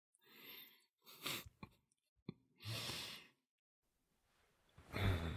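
A man breathing out in soft sighs, with a few short sharp clicks in between. Near the end a low voiced hum or groan swells up.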